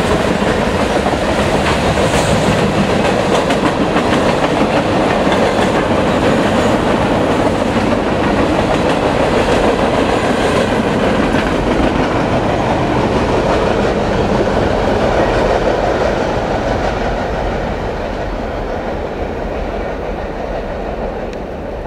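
Freight train's covered hopper cars and tank cars rolling past on the rails, the wheels clattering steadily. The sound fades over the last several seconds as the end of the train passes and draws away.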